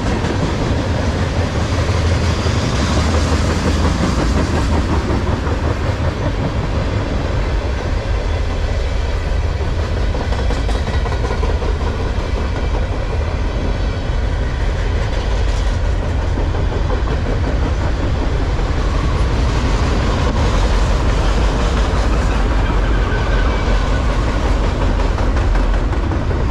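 Freight cars of a long CSX manifest train rolling past: tank cars, then empty open-top trash cars. The steady low rumble of steel wheels on the rails holds at one level throughout.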